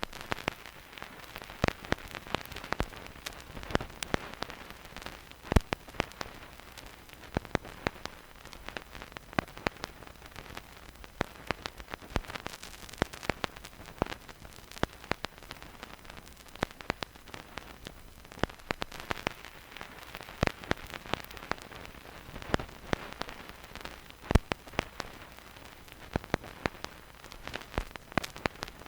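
Vinyl record surface noise with no music: a needle in the groove giving irregular crackles and pops, some sharper than others, over a faint steady hiss.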